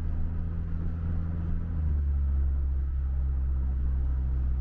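A motor vehicle driving: a steady low engine and road drone that steps down slightly in pitch about two seconds in.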